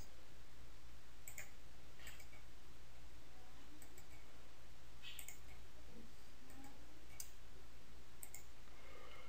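Computer mouse clicking about seven times at uneven intervals, sometimes two in quick succession, as menu options are opened and unticked, over a faint steady low hum.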